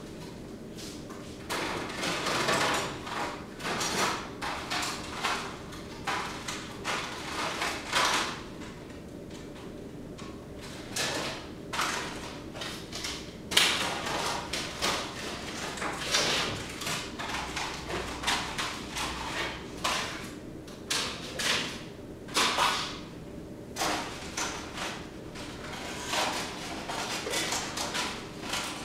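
Adhesive tape being peeled off in a long series of irregular rasping pulls, some short and some lasting about a second.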